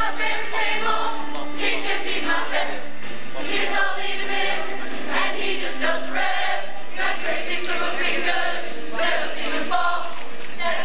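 Rock-musical music with a large group of voices singing together in chorus, over sustained instrument tones that fade out a few seconds in.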